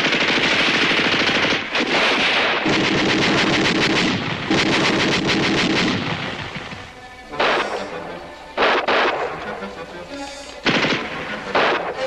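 Machine-gun fire: long, rapid bursts for about six seconds, then several short separate bursts.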